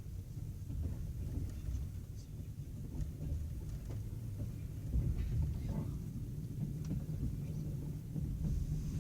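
Low, uneven rumble of a passenger train heard from inside the carriage, with a few faint clicks.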